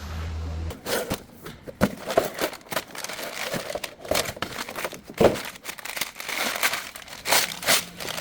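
Crinkling, rustling handling noise broken by many irregular sharp clicks and knocks, with a brief low hum at the very start.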